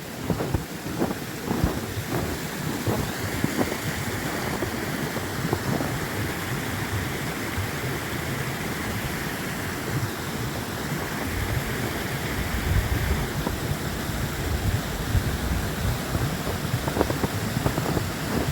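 Wind rushing and rumbling on the microphone outdoors, as a steady noisy haze with irregular low buffeting.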